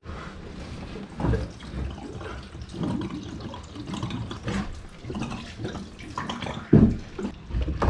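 Water draining out of a tank, running and splashing steadily, with a single louder thump about seven seconds in.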